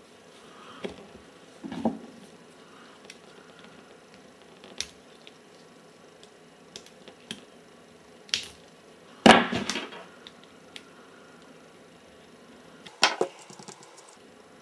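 Small side cutters snipping the wire leads of components on a stripboard, with handling clicks between the cuts. There are a few sharp snaps, the loudest about nine seconds in and another about thirteen seconds in.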